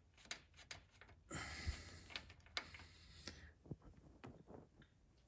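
Faint clicks and a brief rustle of hand-and-tool handling as an Allen bit is lifted off a threaded transmission dipstick plug, with a few light ticks afterwards.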